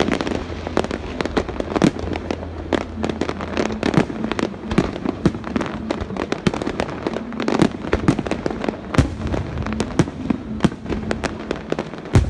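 Aerial fireworks going off in a dense, irregular string of bangs and crackles, several a second.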